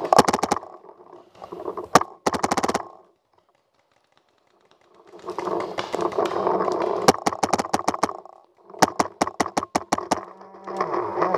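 Paintball marker firing rapid strings of shots, several a second, in short bursts near the start and about two seconds in, then a longer run of fire from about five to ten seconds in, broken by about two seconds of near silence.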